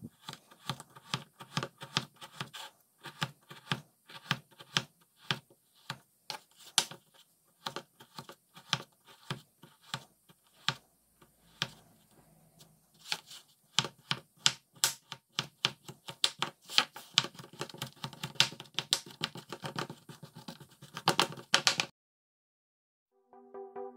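A knife chopping a crumbly solid bubble bath bar on a wooden cutting board: a steady run of crisp chops and taps, a few a second, coming thicker near the end and then stopping.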